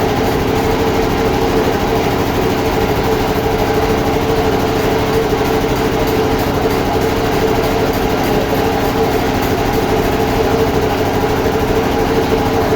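Sawmill machinery running steadily, a constant mechanical hum with no change in pitch or level.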